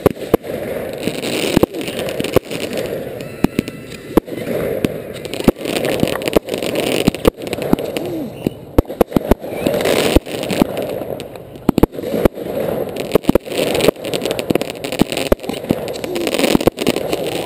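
Fireworks display at close range: many sharp bangs in quick, irregular succession, several a second, from launching and bursting fireworks, over a continuous rushing noise.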